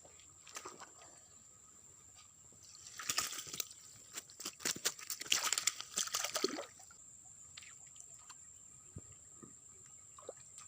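Water splashing and sloshing in a dense, clattering burst lasting about four seconds, starting about three seconds in, with a steady high-pitched thin tone underneath.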